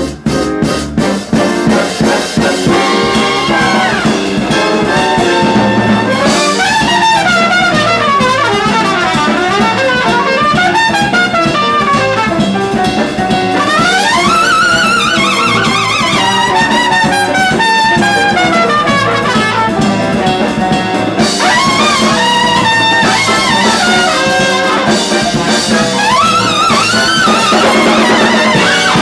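Live jazz big band with a full brass section playing. After short, punchy band accents at the start, a trumpet plays high lines that rise and fall over the band.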